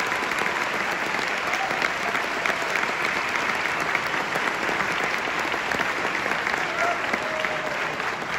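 Audience applauding: dense, steady clapping from a large crowd in a concert hall, with some voices mixed in.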